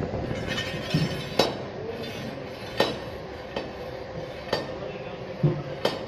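Steel pipe and its fittings being handled and fitted together: about five sharp metallic clinks a second or so apart, with a couple of duller knocks, over a steady background hum.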